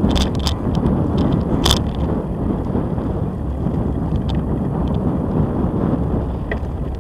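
A bicycle rolling along a concrete-slab track: a steady rumble from the tyres on the slabs, with sharp rattling clicks from the bike, several in the first two seconds and the loudest just before two seconds in.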